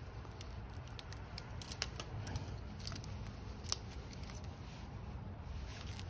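Small clicks and rustling of plastic wiring connectors and cables being handled, with a few sharp ticks, the loudest a little under four seconds in.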